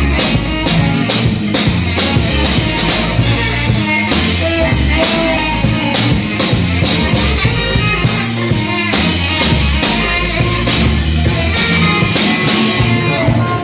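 Band music with drums and bass keeping a steady beat.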